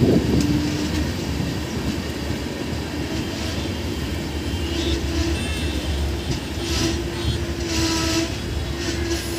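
Passenger train running along the track, heard from aboard: a continuous rumble and rattle of wheels on rail, with a steady low hum that comes in shortly after the start and again about halfway through.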